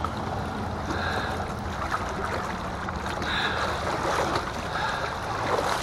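Steady rush of river water flowing and lapping around a kayak in the current.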